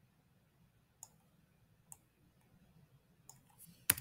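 A few sparse, sharp clicks of a computer mouse, the loudest one near the end.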